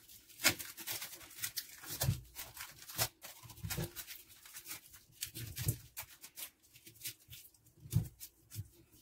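Irregular clicks, taps and a few soft knocks from hands working at a washing machine's water hose connection, tying rubber around it as a makeshift fix for a leak.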